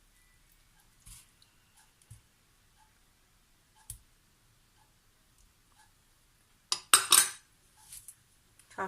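Kitchen utensils and a cooking pot clinking and knocking as meat is put into the pot: a few faint clicks, then a louder clatter of several sharp knocks about seven seconds in, and another short knock near the end.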